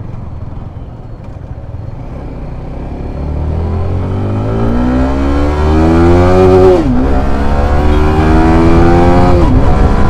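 Sport motorcycle engine pulling away and accelerating. Its pitch climbs steadily, drops sharply at an upshift about seven seconds in, climbs again and drops at a second shift near the end, over wind noise that grows with speed.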